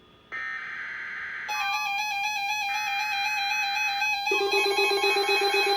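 Synthesized electronic alert tones, steady pitches with many overtones, stacking up in layers like a short electronic jingle and growing louder; new tones join twice, the second time with a lower tone added. They follow a brief drop to near silence.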